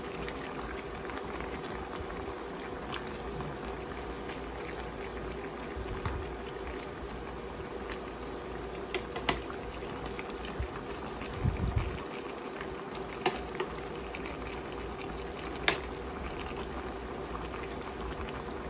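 Chicken tinola broth boiling in a pan, a steady bubbling over a steady hum. A metal spoon stirring the cabbage and chicken gives a few sharp clicks against the pan.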